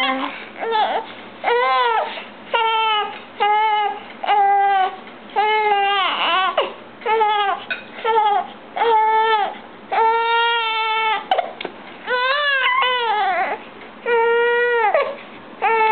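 Young baby crying in a steady series of short wails, each arching up and down in pitch with a quick breath between, and one longer held wail about ten seconds in.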